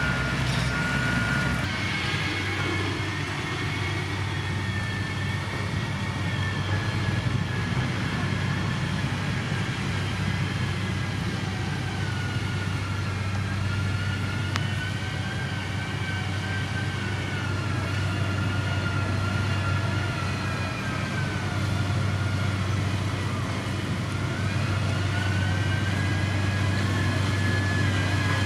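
Heavy diesel road-construction machine running steadily under a low engine drone, with a high whine that slowly falls and rises again as the machine works.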